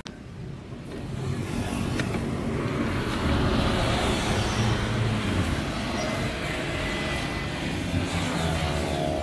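A motor vehicle running close by, growing louder about a second in and then holding steady. A single sharp tap about two seconds in fits a knife striking a wooden cutting board.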